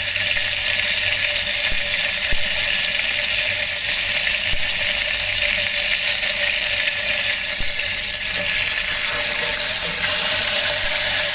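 Marinated chicken pieces sizzling in hot oil in the base of an electric kettle: a steady, dense frying hiss.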